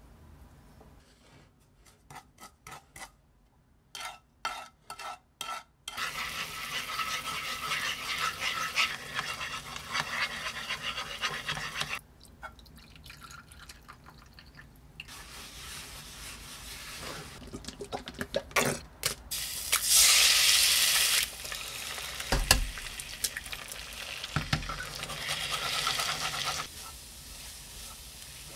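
Home-cooking sounds in several short takes. First a run of short scrapes and taps from a spoon stirring sugar into liquid in a nonstick frying pan, then longer spells of stirring and rustling. Near the end, a spatula pushes scrambled eggs around a nonstick frying pan, with a few dull knocks before it.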